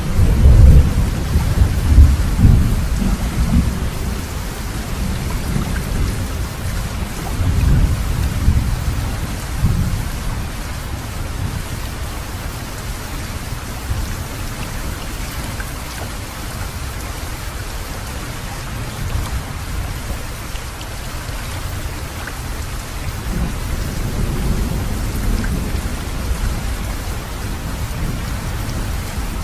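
Steady rain with deep rumbles of thunder, loudest in the first few seconds, again about eight seconds in, and more softly near the end.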